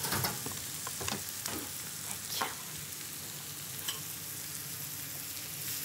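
Button mushrooms sizzling in butter and shallots in a hot frying pan on a gas burner, with a few knocks and scrapes in the first couple of seconds as they are tipped in and stirred with a spatula, and one more at about four seconds.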